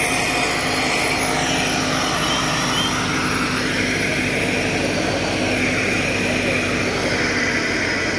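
Tractor diesel engines running steadily, with no break.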